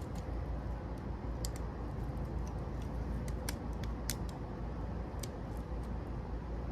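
Scattered light clicks and ticks from the pieces of a smashed camcorder being handled, the sharpest about four seconds in, over a steady low hum.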